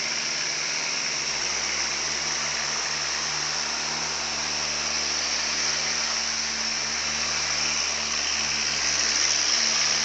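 Steady rushing water with a low, steady hum underneath.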